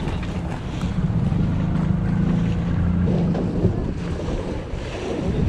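A skiff's outboard motor running steadily underway, with wind buffeting the microphone and water rushing past the hull.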